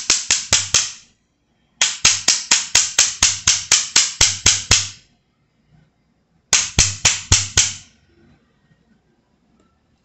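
A small hammer tapping the brass body of a Yale padlock: quick, even taps about six a second in three runs, the longest about three seconds. The taps are light ones meant to make the hidden retaining pin show through the body.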